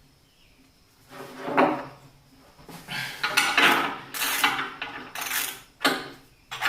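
Repeated short scraping and clattering noises of wood and tools being handled, coming in quick bursts from about a second in.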